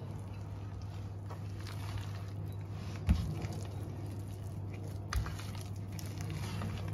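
A spoon stirring a thick túró (curd cheese) filling with vanilla pudding mixed in: soft squishing and scraping in the bowl, with a sharp knock about three seconds in and a lighter one about five seconds in, over a steady low hum.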